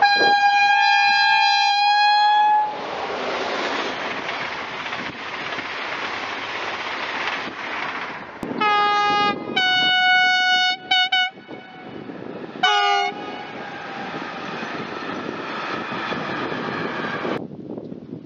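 Train horn: one long blast of about two and a half seconds, then a short blast, a longer one ending in quick stutters, and another short blast, over a steady rushing noise.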